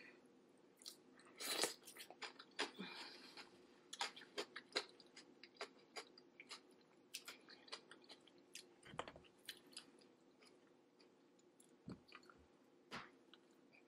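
Close-miked chewing and wet mouth smacks of a person eating: an irregular run of soft clicks and smacks, the loudest about one and a half seconds in.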